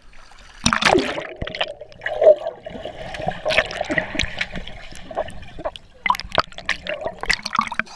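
A splash as the camera plunges into pool water about a second in, then muffled underwater bubbling and gurgling with scattered sharp clicks and knocks from a swimmer kicking nearby.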